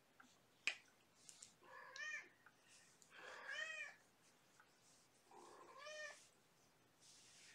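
Young kittens meowing: three short mews, each rising then falling in pitch, about two, three and a half and six seconds in. A single sharp click comes just before the first mew, about half a second in.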